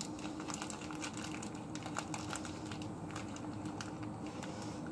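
Scattered light clicks and taps, irregular and faint, over a steady low hum.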